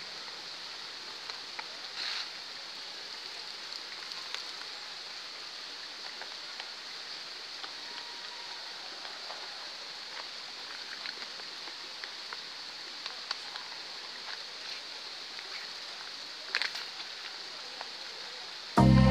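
Steady outdoor background hiss, strongest in a high band, with a few faint brief ticks; loud music cuts in abruptly at the very end.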